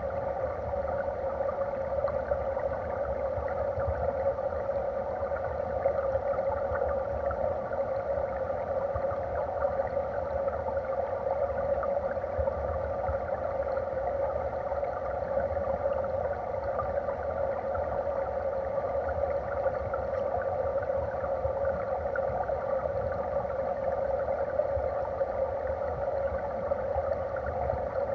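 Flowing stream water heard underwater: a steady, muffled rush with a low rumble beneath it.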